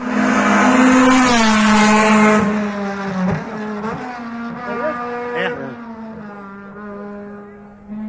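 Honda Civic race car's K20 four-cylinder engine at high revs as it passes close by, loudest in the first two seconds with its pitch falling as it goes away, then running on more faintly up the course.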